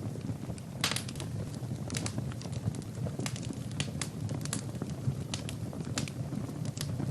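Wood fire burning in a fireplace: logs crackling and popping at irregular moments over a low, steady rumble of flame, with a denser burst of crackles about a second in.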